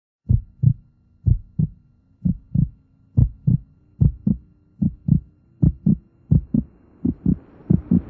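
Heartbeat sound effect: paired lub-dub thumps, about one pair a second at first and gradually quickening, over a faint low held tone. A rising rush of noise builds in near the end.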